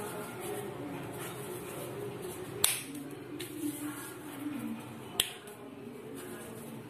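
Quiet kitchen handling as hands shape a small ball of dough over a steel plate, with two sharp clicks about two and a half seconds apart.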